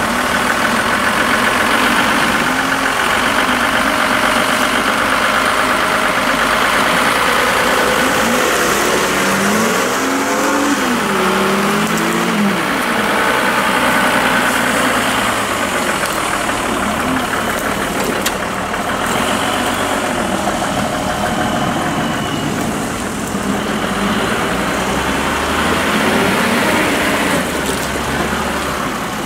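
Lifted Mitsubishi Pajero off-roader's engine running under load as it crawls through deep mud, revving up and down in several swells, the biggest about a third of the way in.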